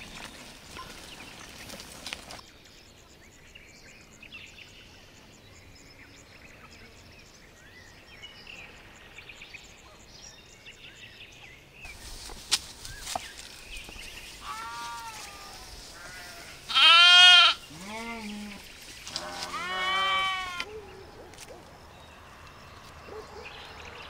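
Young farm animals bleating: about four high, wavering bleats in the second half, the loudest about two-thirds of the way through, over a faint outdoor background.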